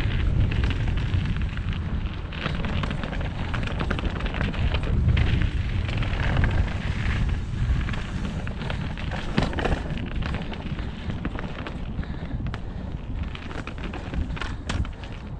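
A mountain bike running fast down a dirt trail: a steady loud rush of wind and tyre rumble, broken by many sharp clicks and rattles from the bike over rough ground.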